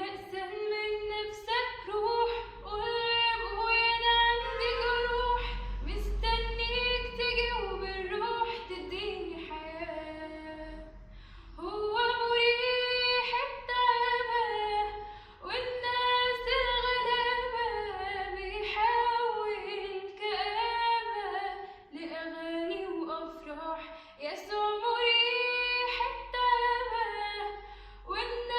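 A female voice singing an Arabic Christian hymn solo and unaccompanied, in long held phrases with short breaks for breath.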